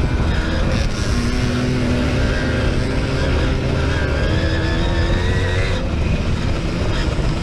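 Simson moped's small two-stroke single-cylinder engine running hard from on board, the revs rising and falling as it rides. A dense low rumble runs underneath.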